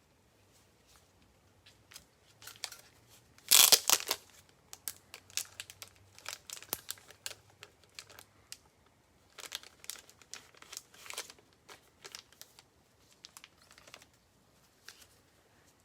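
Plastic wrapping crinkling and tearing as a trading-card box is handled, in scattered crackles with one loud burst about three and a half seconds in.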